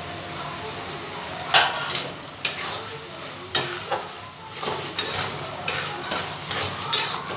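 A metal spatula stirring and scraping a thick chicken-and-egg mixture around a metal pan, in repeated strokes starting about one and a half seconds in, over a steady sizzle from the pan on the flame.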